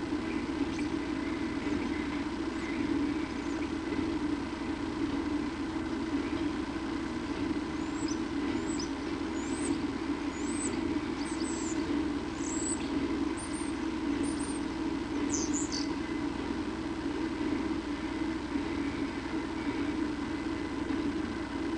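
A series of about ten short, high bird chirps between about 8 and 16 seconds in, over a steady low hum.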